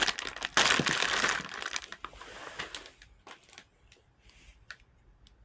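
Crinkling and rustling of handled plastic or packaging, loudest about a second in and dying away, followed by a few light clicks and taps.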